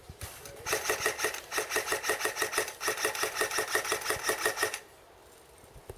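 Airsoft gun firing one sustained full-auto burst: a rapid, even string of sharp mechanical shots that starts under a second in, lasts about four seconds and stops suddenly.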